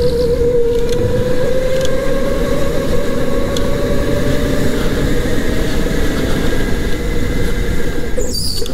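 Electric go-kart's motor whining at speed, the whine rising slowly in pitch over a steady rumbling noise. Near the end the whine drops out briefly with a short high squeal, then comes back lower.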